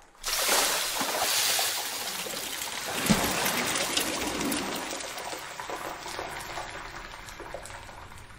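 Battered chicken dropped into hot oil in a deep fryer: a loud sizzle that starts at once and slowly dies down, with a sharp click about three seconds in.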